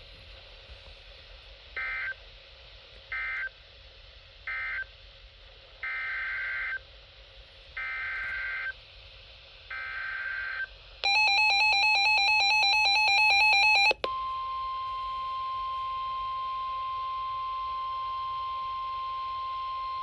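Emergency Alert System data bursts and alert tones. First come three short screeching data bursts about a second apart, the end-of-message code closing the severe thunderstorm warning. Then three longer bursts, the header for the next alert, a tornado warning. About eleven seconds in, the harsh two-tone attention signal sounds for about three seconds and switches abruptly to a steady single-pitch weather-radio alert tone that holds to the end.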